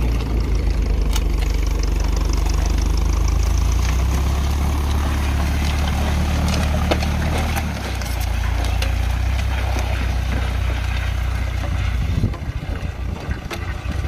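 Ferguson TE-F tractor's four-cylinder diesel engine running steadily under load while pulling a mounted plough. About twelve seconds in it becomes quieter and more distant.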